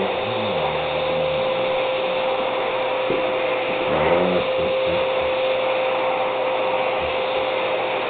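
A vacuum cleaner runs steadily with a constant whine as its nozzle is drawn over the coat of a white American Shepherd. The dog makes happy vocal sounds twice, just after the start and about four seconds in.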